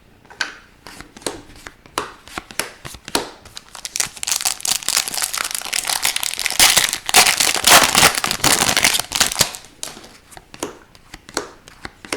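Scattered light clicks of trading cards being handled, then from about four seconds in a dense crinkling and tearing as a foil hockey card pack wrapper is torn open and crumpled, lasting several seconds before the clicks return.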